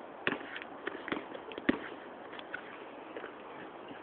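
Basketball dribbled on a hard outdoor court: a few sharp, separate bounces in the first two seconds, then only faint taps.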